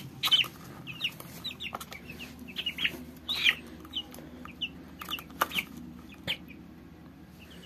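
Two-week-old broiler chicks peeping: many short, high chirps scattered throughout, with a few brief knocks among them.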